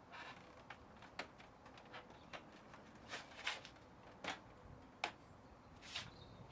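Faint, scattered sharp clicks and light knocks, about half a dozen, from the plastic side fairing of a Suzuki GSX-R 750 being handled and worked free of its interlocking points and rubber grommets.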